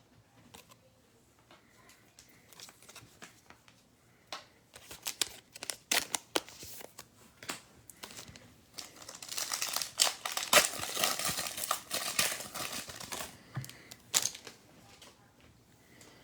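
Plastic trading-card pack wrapper being crinkled and torn open, a dense run of crackling for about four seconds past the middle, with scattered sharp clicks of card handling before it.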